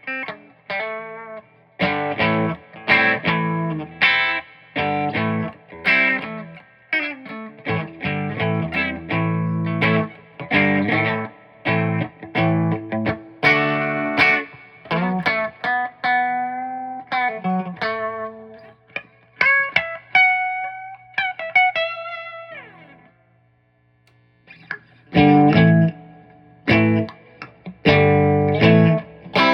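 1987 G&L SC-3 electric guitar played through a lightly overdriven amp: repeated short chord stabs and riffs, a few held single notes about twenty seconds in, a brief break a little later, then chords again.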